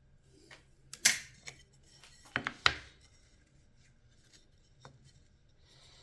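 Sharp clicks and knocks of hand work on a workbench: one loud knock about a second in, a quick run of three around two and a half seconds in, and a faint click near the end.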